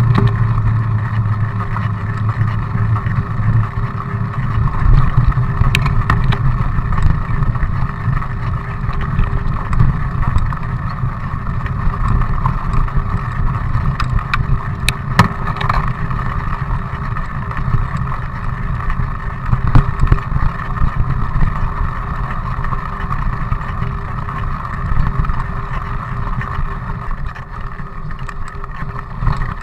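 Mountain bike riding: wind buffeting the camera microphone over steady tyre noise on asphalt and then gravel, with scattered sharp knocks and rattles from bumps.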